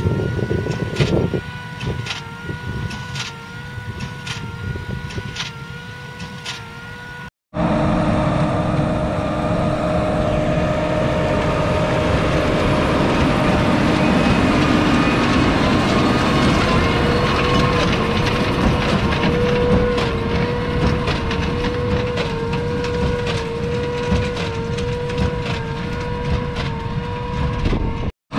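Case IH Puma 200 CVX tractor's 6.7-litre six-cylinder diesel running with a Claas Quadrant 5200 large square baler working behind it: a steady machine drone with a hum that wavers in a regular beat and light knocks at regular intervals. After a cut about a quarter of the way in, it is louder and fuller.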